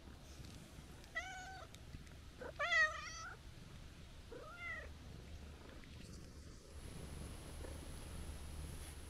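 Calico cat meowing three times, the middle meow the longest and loudest. Near the end a low, steady purr sets in as it rubs against a shoe.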